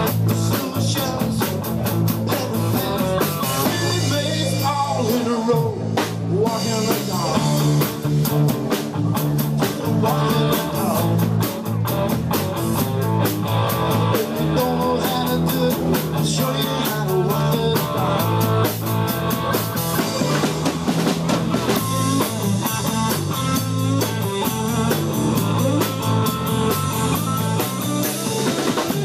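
Live band playing: electric guitar, bass guitar and drum kit together, with a steady drum beat.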